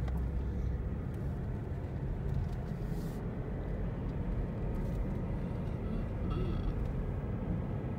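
Steady low rumble of road noise inside a moving car's cabin as it drives down a winding mountain road, with a brief click about three seconds in.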